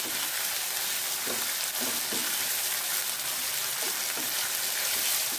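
Sliced onions, green chillies and curry leaves sizzling steadily in hot oil in a kadai as they are sautéed toward translucence, with a spatula stirring them and scraping the pan a few times.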